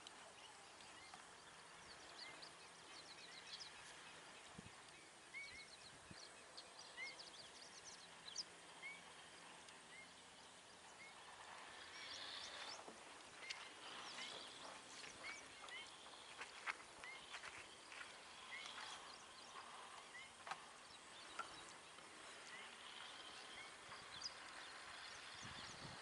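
Faint distant bird calls: a short upslurred note repeated about once a second, with other chirps in between and a few faint clicks.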